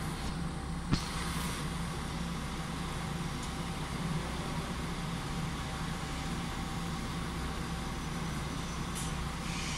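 Steady mechanical drone of a railway station, with a low hum and a faint whistling tone held throughout. A single sharp click comes about a second in.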